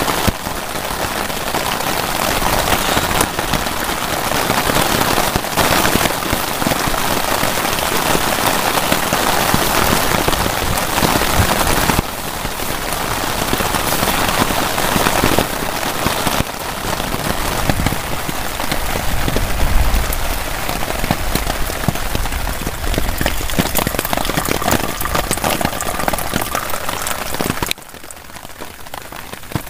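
Heavy rain falling steadily on a tarp shelter. It is a dense, even sound that drops suddenly to a quieter level near the end.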